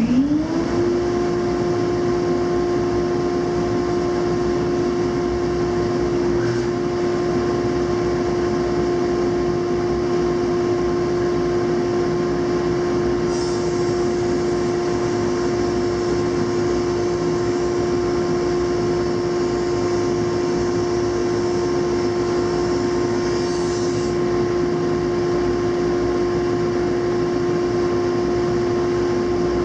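Laguna 25-inch planer with a ShearTec II spiral cutterhead starting up, its whine rising in pitch and settling into a loud, steady run. A board feeding through the cutterhead adds a high hiss of cutting from about 13 to 24 seconds in.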